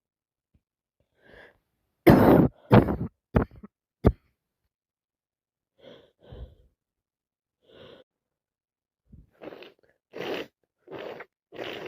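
A woman with a head cold coughing in a quick run of four harsh coughs about two seconds in, the first the longest and loudest. Softer congested breaths and sniffs follow, coming closer together near the end.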